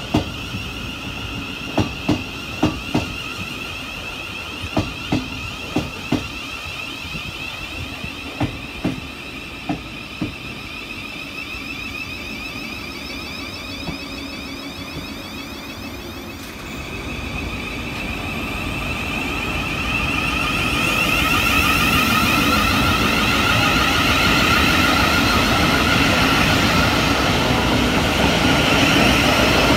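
Electric trains at a station platform. Through the first ten seconds or so, train wheels knock over rail joints in quick pairs. Then the whining of a Thameslink Class 700 electric multiple unit's traction motors builds and grows louder as it runs past close by.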